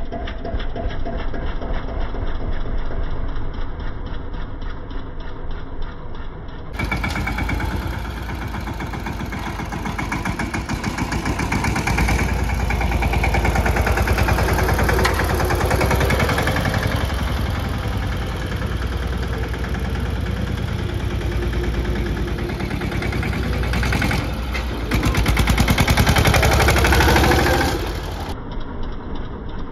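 The single-cylinder diesel engine of a Mahindra Yuvraj 215 tractor running and revving, with a dense, even firing beat. It gets louder in a long middle stretch and peaks just before the end.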